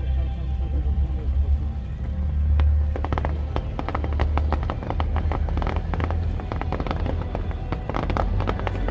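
Fireworks display: a deep booming rumble of shells bursting, joined about three seconds in by dense, rapid crackling.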